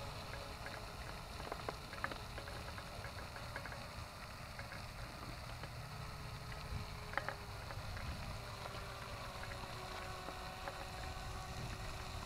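Faint, steady whine of a distant RC speedboat's small electric motor running out on the pond, over a steady wash of background noise.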